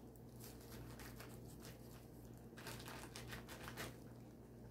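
Thin clear plastic bag crinkling faintly as it is handled, in irregular crackles that grow busier in the second half, over a faint steady low hum.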